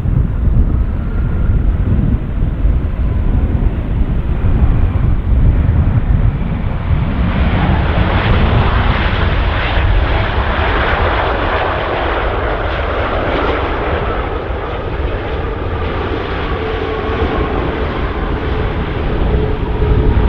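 Qantas Airbus A380's four Rolls-Royce Trent 900 jet engines running on the landing rollout just after touchdown, with a heavy low rumble. About seven seconds in the jet noise grows louder and hissier, and a faint whine falls slowly in pitch through the second half.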